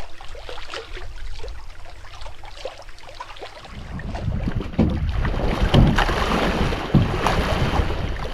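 Canoe on the water in wind: wind buffeting the microphone over water splashing and lapping, with scattered knocks. It gets louder about four seconds in.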